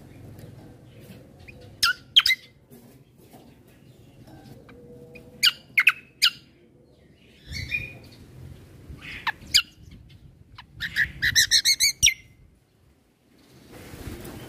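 Kecial kombo (cucak kombo) songbird calling in sharp, very short high notes, in pairs and threes, then a fast trill of about ten notes near the end, over a faint low background hum.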